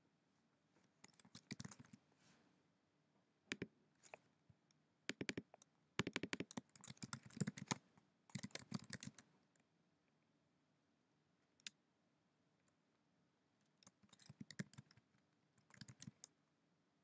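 Computer keyboard typing: faint keystrokes in several quick runs, separated by pauses, with one lone keystroke in the middle.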